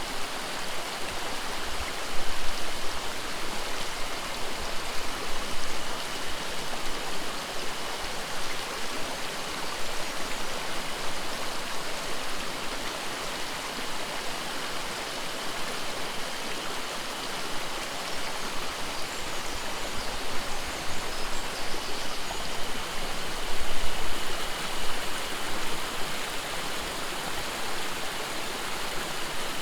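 Mountain stream running steadily, a constant rush of water with a couple of brief louder moments.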